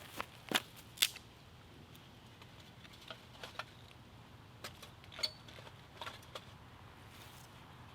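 Wood being broken down into smaller pieces by hand, heard as irregular sharp cracks and clicks. The loudest come about half a second and a second in, with scattered lighter ones after.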